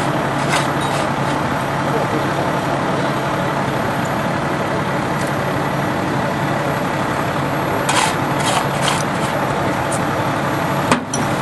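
Fire engine's diesel engine idling with a steady low hum. A few short sharp clicks come about eight seconds in, and a single sharp knock comes near the end.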